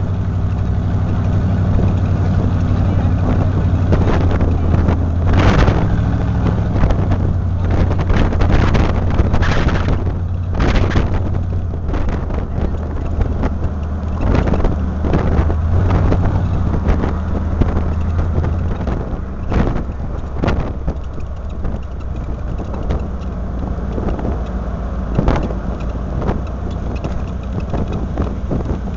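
Car engine running steadily at low street speed with tyre and road noise, heard from inside a moving car. Irregular gusts of wind noise hit the microphone, and the low drone eases a little past halfway through.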